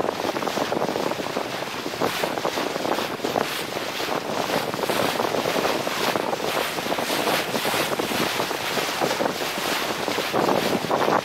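Water rushing and splashing along the hull of a Lancer 25 sailboat under sail, mixed with wind buffeting the microphone: a steady, fluttering noise with no engine.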